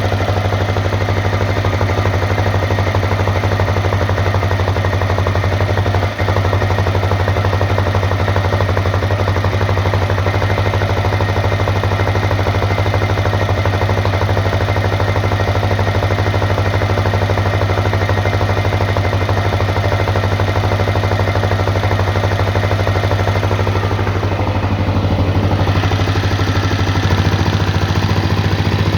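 Honda CRF250L's single-cylinder four-stroke engine idling steadily, with a knock the owner is recording. The sound dips very briefly about six seconds in and changes a little near the end.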